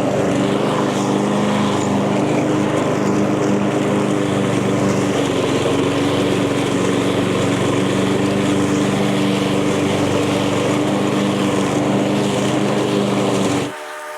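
Echo 190cc gas push mower's single-cylinder engine running steadily under load while cutting tall grass. Near the end the sound drops abruptly to a thinner, quieter hum.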